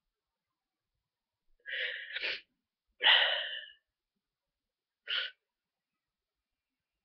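A congested person with a head cold sneezing once about three seconds in, after a short build-up of two quick sounds. A brief sound follows about two seconds later.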